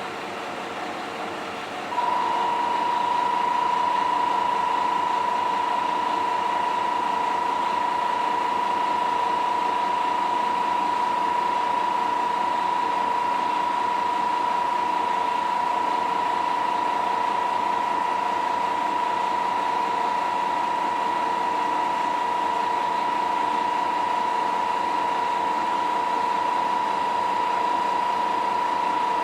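MRT300-series diesel railcar idling at the platform with a steady mechanical hum. About two seconds in, a loud, steady, high single-pitched electronic tone starts and holds without a break.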